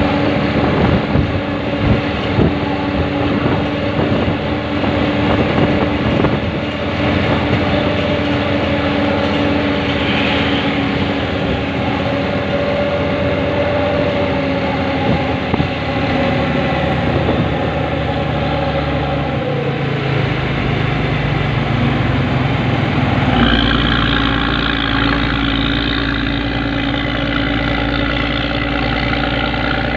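Diesel engine of an intercity bus running just ahead, with wind buffeting on the microphone at first. Its pitch drops about two-thirds of the way in, and it settles into a steady idle close behind the bus near the end.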